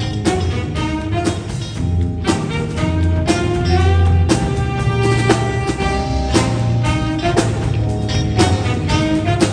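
Jazz big band playing a swing chart: saxophones and brass over drum kit and bass, with a steady beat.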